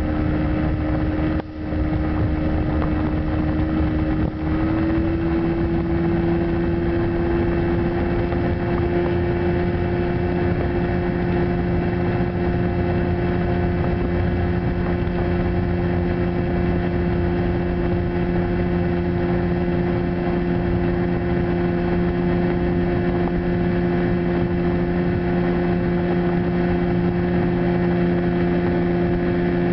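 1995 Johnson 30 HP two-stroke outboard motor running at speed on a small aluminium fishing boat, with water spray and wind rushing past. Its pitch rises slightly about four seconds in and then holds steady.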